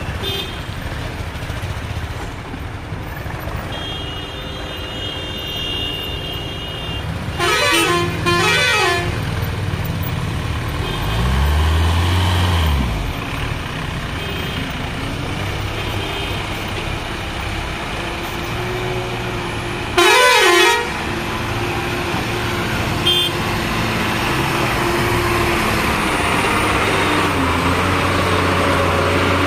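Truck and van engines running as traffic creeps along a rough dirt road, growing louder near the end as a goods truck pulls right alongside. A vehicle horn sounds with a warbling up-and-down pitch, a double honk about eight seconds in and one more about twenty seconds in. An engine revs up and back down around twelve seconds in.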